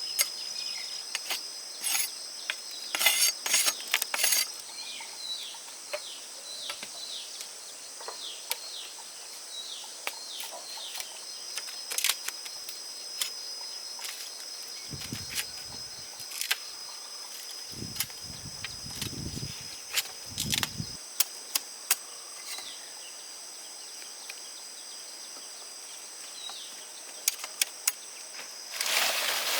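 Insects giving a steady high-pitched drone, with scattered sharp clicks and rustles over it and a few low rumbles around the middle.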